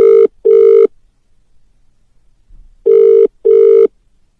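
Telephone ringing with a double ring: two short tone pulses in quick succession, heard twice about three seconds apart.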